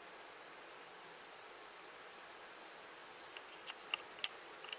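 A cricket trilling steadily, a high-pitched chirp pulsing rapidly and evenly. A few faint ticks come just before a single sharp click about four seconds in.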